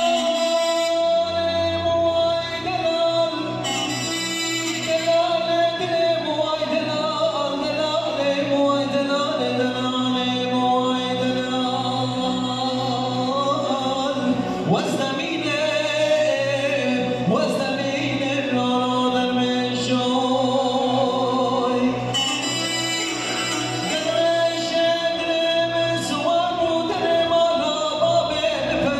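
Male singer performing an uzun hava, a free-rhythm Turkish folk song, in long held, wavering ornamented notes over sustained electronic keyboard accompaniment.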